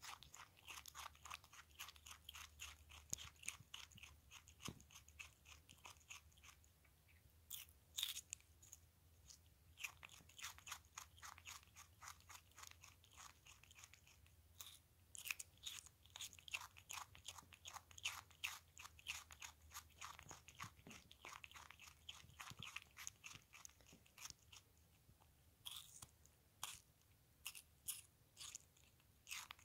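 Ringtail possum chewing a piece of cucumber, a fast run of small crisp crunches at about five a second, broken by short pauses.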